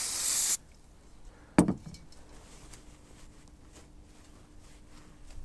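A short hiss of aerosol carb cleaner sprayed onto a sooty spark plug, stopping abruptly after about half a second. A sharp knock follows about a second later, then faint scuffing as the plug is cleaned.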